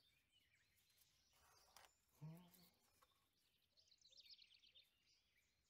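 Near silence: faint outdoor ambience, with a faint, rapid high bird trill about two-thirds of the way through.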